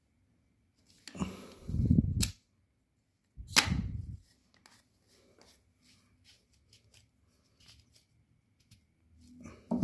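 Black plastic compression coupling being handled and screwed onto plastic pipe: plastic knocking, rubbing and clicking, with two louder bumps about one and a half and three and a half seconds in, then faint ticks of the threads and fingers.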